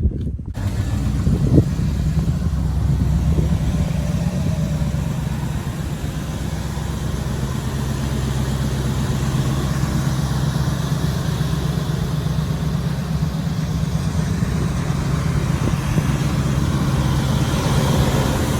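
Chevrolet 350 small-block V8 in a 1968 El Camino idling steadily.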